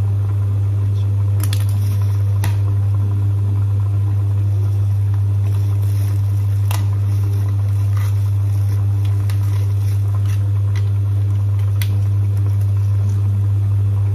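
A loud, steady low hum with a few faint clicks and crinkles of plastic as an egg is peeled by hand.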